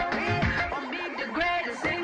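Upbeat dance song playing: a beat under a melody of notes that slide up and down in pitch, with the low beat dropping out for a moment about halfway through.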